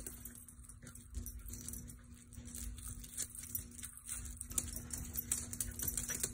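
Faint clicks and patter from a small dog chewing at a treat held out by hand and moving about on a hardwood floor, over a faint steady hum.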